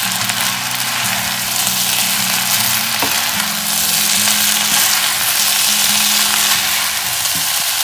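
Noodles, chicken and vegetables sizzling in a hot non-stick wok while being stir-fried with plastic spoons as dark soy sauce is mixed through, over a steady low hum.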